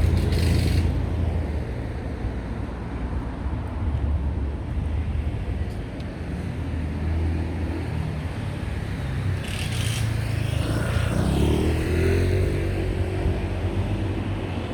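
City street traffic with a steady low rumble. A short hiss comes about ten seconds in, then a vehicle engine rises in pitch as it pulls away.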